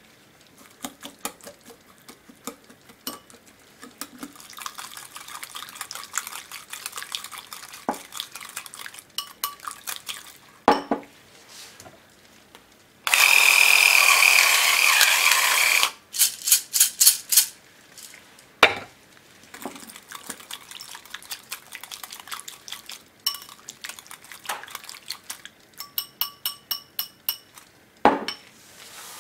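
Metal wire whisk beating a liquid sauce in a glass bowl, with runs of rapid clinking strokes against the glass. About halfway through, an electric pepper mill grinds for about three seconds, the loudest sound.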